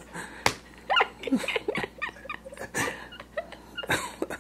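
A woman laughing and crying at once: short, high squeaky whimpers and breathy gasps with pauses between them.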